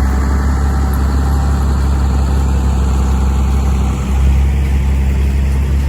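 Heavy earthmoving machine's diesel engine running steadily with a deep, loud drone, dipping briefly about four seconds in.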